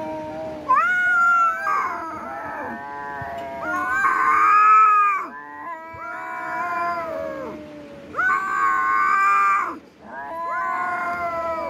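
Young cats play-fighting and yowling: long, drawn-out cries that waver in pitch, one after another, loudest about a second in, around the middle and again near the end.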